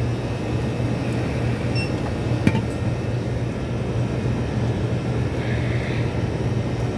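Steady low mechanical hum with a single sharp click about two and a half seconds in.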